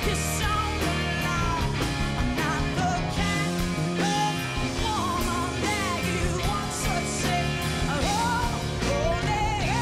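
Live rock band playing: a woman sings over electric keyboard, drums and electric guitar, her voice sliding and bending through the notes.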